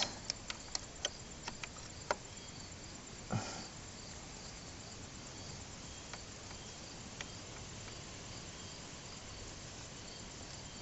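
A few light clicks and taps of metal engine parts being handled, mostly in the first two seconds, with a short scrape a little after three seconds. Under them runs a faint high chirp that repeats evenly.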